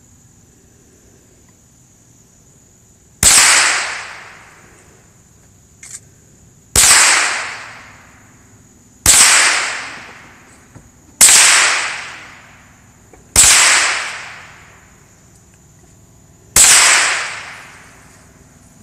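.22 LR rifle firing six shots, each a sharp crack that dies away over about a second, spaced two to three seconds apart.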